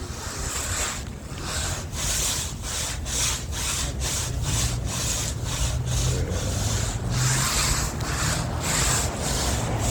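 Hard bristle brush scrubbing wet, foaming awning fabric in quick back-and-forth strokes, about three a second, each a scratchy hiss.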